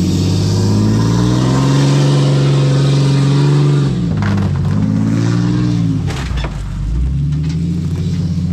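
Tow truck's engine revving hard under load as it drags a chained bus, its rear wheels spinning in loose dirt. The engine holds a high steady note, eases off about four seconds in, climbs again and eases off once more around six seconds.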